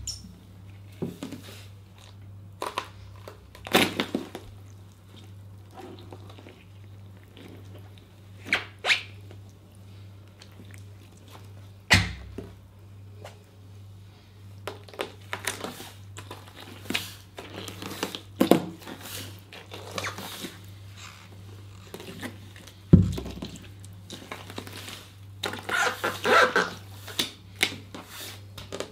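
Green grapes being crushed under rubber wellington boots: irregular wet squelches and pops as the boots step and twist on them, with two heavier thuds of a boot coming down, over a low steady hum.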